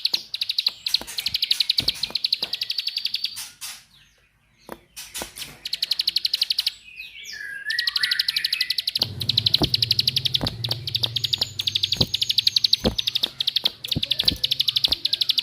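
A recorded small songbird's 'klik-klik' song: a very fast, high, dry run of clicking notes, used as a lure to set ciblek going. The trill breaks off about four seconds in, a short lower twitter comes in between seven and eight seconds, and a low hum joins under the trill about nine seconds in.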